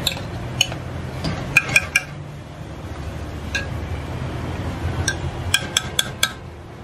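Metal ladle clinking against a large aluminium cooking pot as rice is turned in it: a dozen or so sharp, ringing taps, three in a quick run about a second and a half in and another quick run near the end. A steady low rumble runs underneath.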